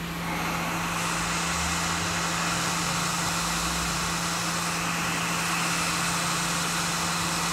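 Hot air rework station blowing steadily while a small surface-mount capacitor is reflowed onto a circuit board: an even rushing hiss with a steady low hum under it.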